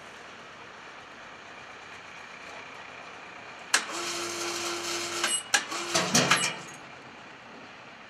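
Electric winch motor of a mini roof crane running in two short bursts with a steady hum, each starting abruptly, the first with a sharp clunk. It runs while lowering a hanging cart.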